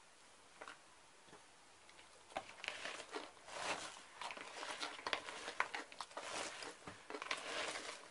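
Freshly shredded, salted white cabbage being squeezed and kneaded by hand in a bowl: a dense crisp crackling and rustling that starts about two seconds in.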